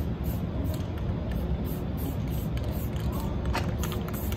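Aerosol spray-paint can hissing in short bursts as paint goes onto a wall, over a steady low rumble.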